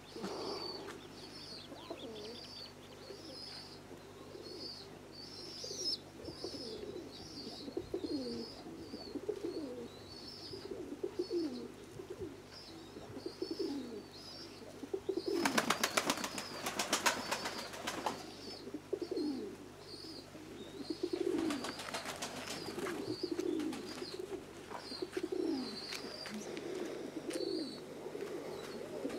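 Domestic pigeons cooing over and over, with a small bird's high chirps repeating about twice a second. Halfway through, and again a few seconds later, there is a short spell of rapid wing flapping.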